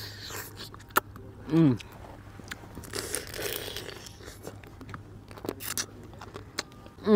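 Cooked crab legs being bitten and chewed: shell crunching, with a few sharp cracks as the shell breaks, while the juice is sucked out. A brief hum about a second and a half in.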